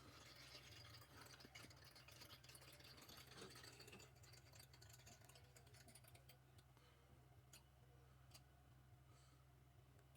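Near silence, with a faint hiss in the first few seconds and scattered faint clicks.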